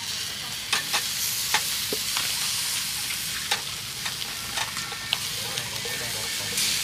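Food sizzling as it cooks, a steady hiss broken by scattered clicks and taps of a cooking utensil turning it.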